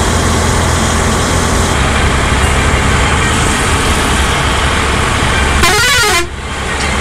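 Bus engine and road noise running steadily inside a moving bus on a highway. Near the end comes a short horn blast, about half a second long, with a wavering pitch.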